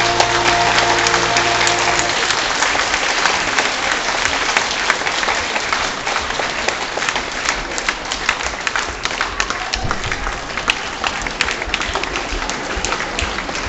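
An audience applauding. The last held chord of the dance music stops about two seconds in, and the clapping carries on alone.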